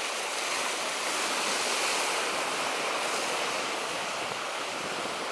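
Surf washing over coastal rocks, a steady rushing noise that swells a little about two seconds in.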